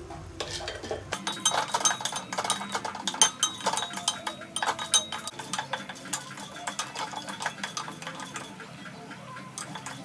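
Dried turkey berries (sundakkai vathal) being stirred in a small steel pan with a little oil. Rapid clinks and scrapes of the spoon against the metal start about a second in.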